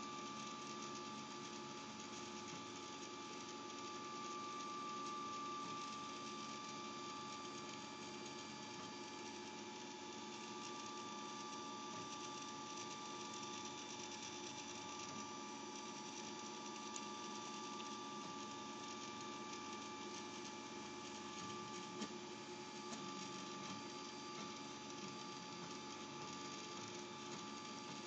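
FDM 3D printer running a print, its stepper motors whining at several steady pitches as the print head and geared filament extruder work.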